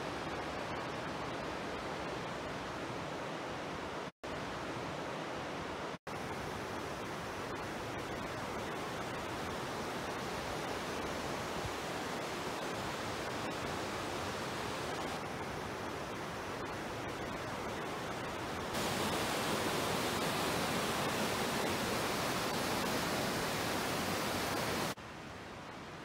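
Steady rush of a shallow mountain river running over a bed of boulders. The sound cuts out for an instant twice in the first several seconds, grows louder and brighter about nineteen seconds in, and drops back just before the end.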